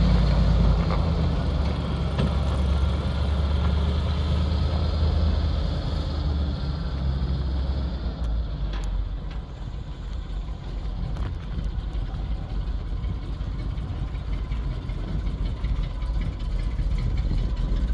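1978 Chevy C65 grain truck's engine idling steadily, louder for the first few seconds and a little quieter after that.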